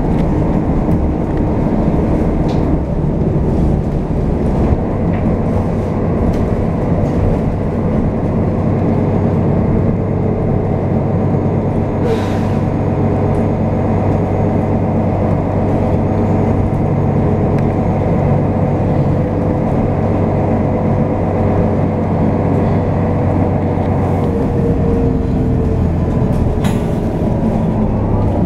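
City bus engine and road noise heard from inside the passenger cabin while the bus drives along: a steady, loud drone, with a short hiss about twelve seconds in and the engine pitch shifting slightly near the end.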